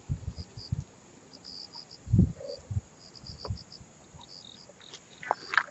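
Field crickets chirping in short, repeated high bursts, with a few low thumps. The loudest thump comes about two seconds in, and a brief sharper sound follows near the end.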